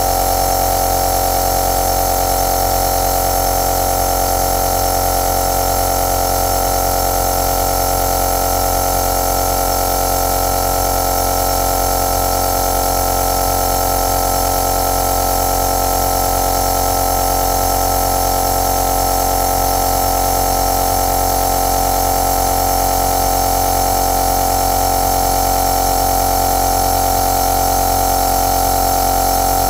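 Compressor nebulizer running continuously: a steady motor hum with a strong constant whine and an airy hiss, unchanging throughout.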